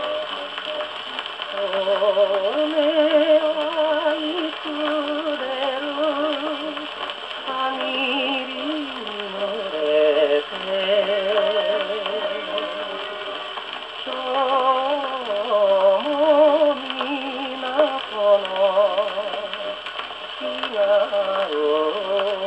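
A 1948 Columbia 78 rpm shellac record played on a portable wind-up acoustic gramophone: a male singer with a wide vibrato and instrumental accompaniment, heard in the narrow, boxy tone of the acoustic horn, with nothing above the upper midrange.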